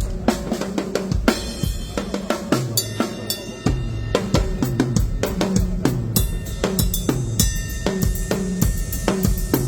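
Music led by a drum kit: a busy beat of kick, snare, hi-hat and cymbal strokes over a bass line that steps between notes.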